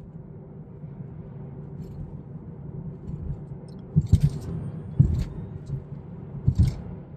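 Road and tyre rumble heard inside the cabin of an electric Tesla Model 3 driving and picking up speed. A few short thumps come through at about four, five and six and a half seconds in.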